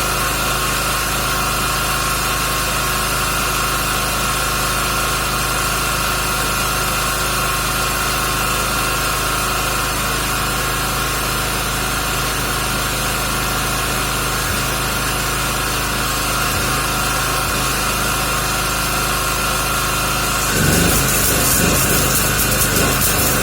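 A 3 kW generator running steadily with an even hum. About 21 s in, a MIG welding arc (1 mm wire, CO2 shielding gas) strikes and crackles over it, and the generator's hum changes as it takes the load.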